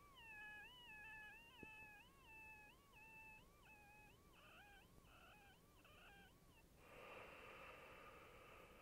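A faint, high whistling wheeze with several pitches sounding together. Its pitch rises and dips about twice a second, a pulsing the person says keeps time with their heartbeat and hears only when lying flat on their back. Towards the end the whistle breaks up and gives way to a softer breathy hiss.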